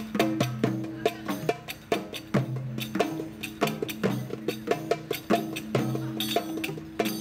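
A group of hand drums played together in a steady, repeating rhythm: frame drums, a metal goblet drum and a small jingled frame drum, mixing deep tones with sharp slaps.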